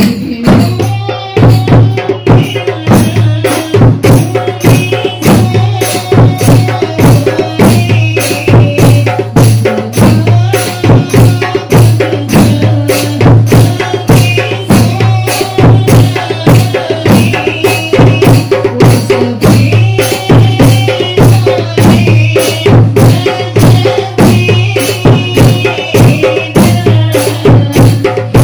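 Women singing a sholawat (devotional song praising the Prophet) in unison, led by one voice, over rebana frame drums beaten in a quick, steady rhythm.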